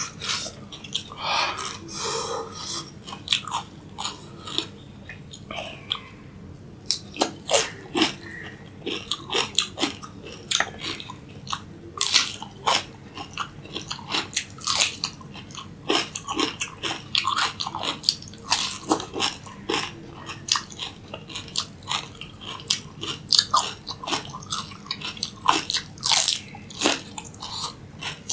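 Raw cucumber being bitten and chewed: irregular crisp crunches, often several a second, with wet chewing between the bites.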